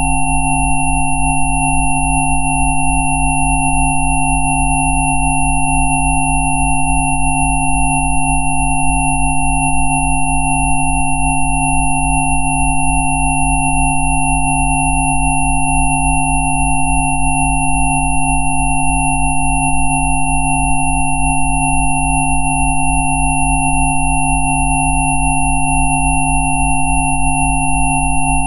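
Synthesized sine-wave tones layered at several fixed pitches and held unchanged, from a low throbbing hum up to a thin high whistle, played as so-called Rife healing frequencies.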